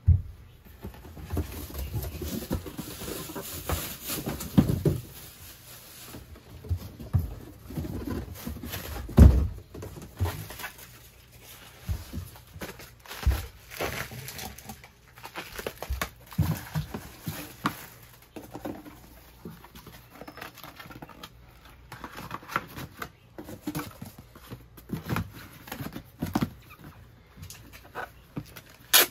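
Packaging being handled while a pair of sneakers is packed: irregular rustling, crinkling, taps and knocks, with one heavy thump about nine seconds in.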